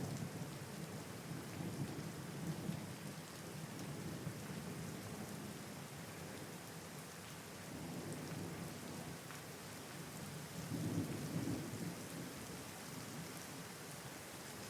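Steady rain falling, with low rolling thunder rumbling underneath that swells several times, most strongly near the end.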